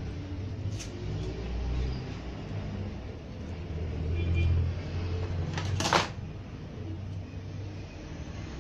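Steady low background rumble, with a short crackling snip just before six seconds in as adhesive tape is cut with scissors.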